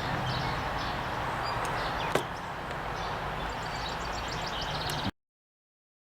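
A single sharp click about two seconds in and faint rapid ticking later on, from a screwdriver and small screws being worked on a Corona 3 folding typewriter, over a steady background hum and hiss. The sound cuts off suddenly to dead silence for the last second.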